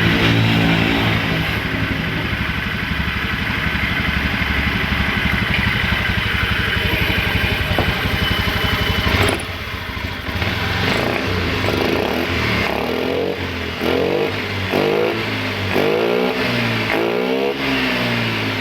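Honda Beat eSP scooter's single-cylinder engine running steadily, then about halfway through revved up and down in a series of short throttle blips, each about a second long.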